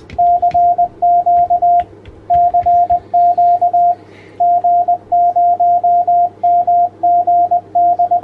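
Morse code (CW) sent as a single keyed tone, a string of short and long beeps grouped into letters with brief gaps between them, over a faint low hum.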